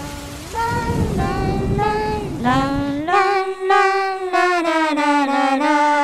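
Outro music: a high, slow melody of held notes stepping up and down in pitch. Rain hiss sits underneath at first and fades out about three seconds in.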